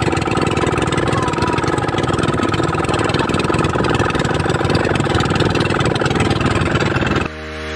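Engine of a motorized bangka outrigger boat running steadily with a fast even pulsing. It cuts off abruptly near the end as music comes in.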